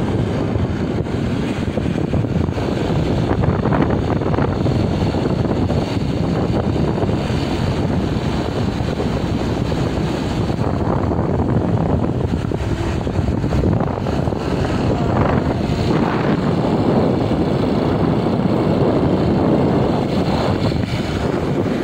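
Wind rushing over the microphone of a moving motorcycle, with the motorcycle running underneath: a loud, steady noise.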